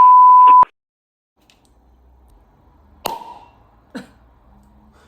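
A loud, steady electronic beep about two-thirds of a second long, one pure tone, ending a voicemail message. It is followed by quiet, with two short sharp sounds about three and four seconds in.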